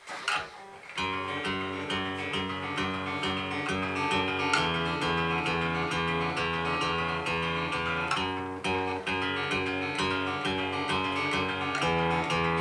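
Acoustic guitar playing a song's instrumental intro: a steady repeating pattern that starts about a second in, the chord changing every three to four seconds.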